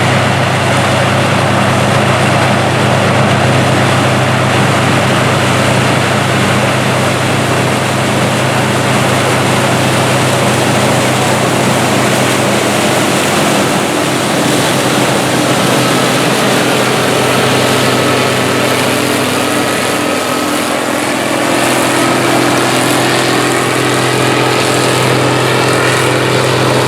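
Combine harvester engine running with a steady drone as the combine comes nearer. About halfway through, a steady higher whine joins the drone.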